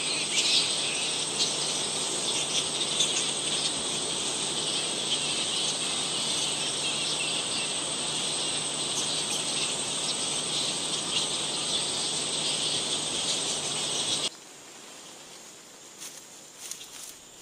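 Dense high-pitched squeaking and chattering from a roosting colony of straw-coloured fruit bats. About fourteen seconds in it cuts off abruptly, leaving a much quieter background with a few faint clicks.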